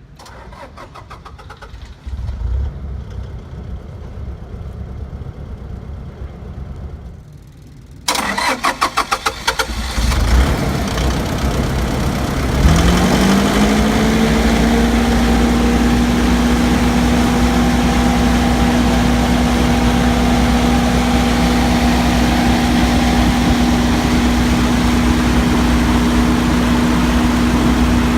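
Isuzu 2.9 L diesel engine of a WhisperWatt 70 generator cranked by its starter about eight seconds in, catching after a couple of seconds. It then rises in pitch to its governed running speed and runs on steadily. A low rumble comes before the cranking.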